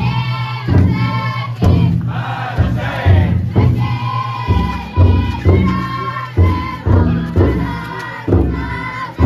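Futon daiko float bearers singing and chanting together in loud, shouted phrases, over the repeated low beat of the float's big drum.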